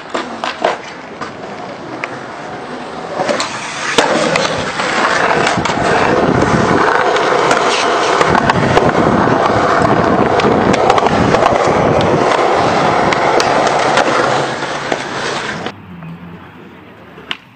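Skateboard wheels rolling on concrete with a steady loud roll, broken by sharp clacks of the board popping and landing tricks; the loudest clack comes about four seconds in. The rolling drops away near the end.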